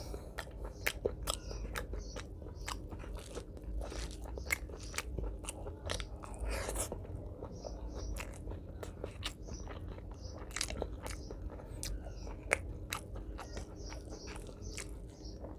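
Close-miked, open-mouthed chewing of a handful of curry-soaked rice, full of irregular wet clicks and lip smacks.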